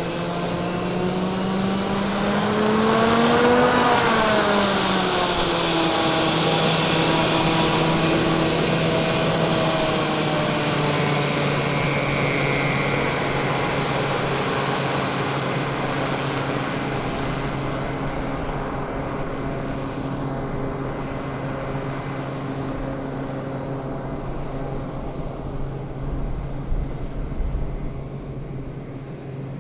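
RFB Fanjet 600's ducted-fan turbine engine running as the aircraft taxis: a steady engine tone with a high turbine whine. Its pitch and loudness swell upward about three to four seconds in, then drop and settle lower, and the sound slowly fades near the end.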